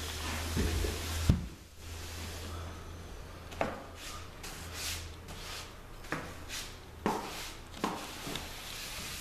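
A wide block brush dragged across a wood floor, spreading wet water-based finish in repeated rubbing strokes, each stroke ending in a short scrape or knock.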